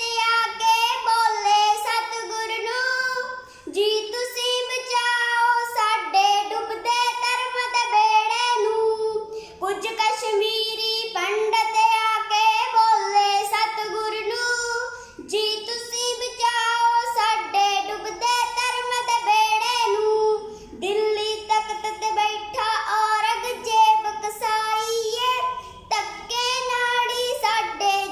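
A young girl singing solo and unaccompanied in a high voice, in phrases of several seconds with short breaks for breath between them.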